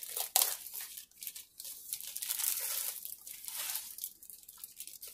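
Clear plastic bag crinkling and rustling in irregular bursts as a rolled diamond painting canvas is pulled out of it, with a sharp crackle about half a second in.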